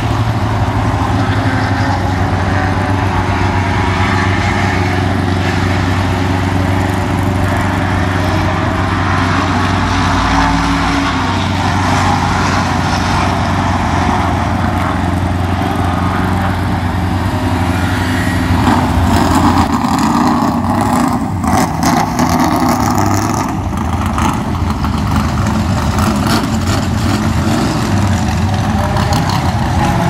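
Engines of vintage racing cars running as the cars drive slowly past one after another, among them an early Porsche 911's air-cooled flat-six. A stretch of sharp crackles comes about twenty seconds in.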